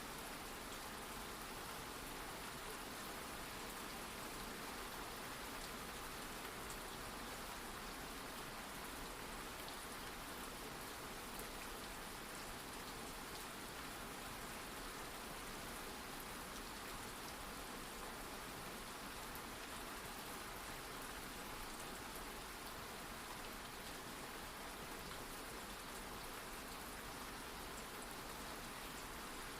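Steady rain falling: an even hiss with a faint patter of individual drops.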